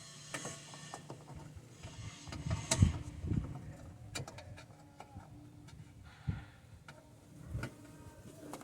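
Scattered clicks and knocks of hands working a replacement H4 headlight bulb into its headlamp housing, the loudest knock about three seconds in.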